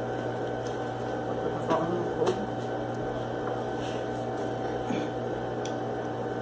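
A steady electrical hum with a few fixed tones, with a handful of short clicks and a brief voice-like sound about two seconds in.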